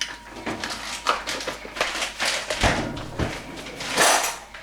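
Irregular knocks and clinks of kitchen utensils and cookware being handled while cooking, with one louder, longer noisy sound about four seconds in.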